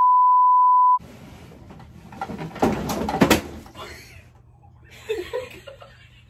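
A one-second 1 kHz censor bleep, a single steady tone with the room sound cut out beneath it. It is followed by quieter rustling and a few sharp knocks of things being handled and moved about.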